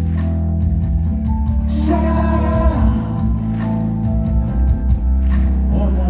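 Live band music played loud through a concert PA: heavy sustained bass and held synth chords, with a voice singing over them.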